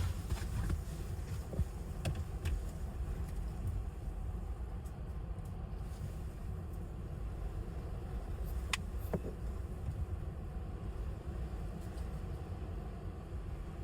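Steady low rumble inside a car, with a few faint clicks and one sharper click near the middle.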